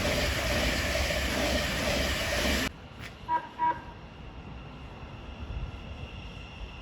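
Train passing at speed, a loud rushing rumble that cuts off abruptly a little under three seconds in. Then come two short, same-pitched toots of a train horn about a third of a second apart, against a much quieter background.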